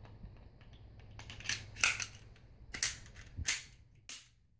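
Glock 42 slide and frame clicking and snapping as the slide is fitted back on and worked over the new extended slide lock lever: about six sharp clicks, the loudest about two seconds in.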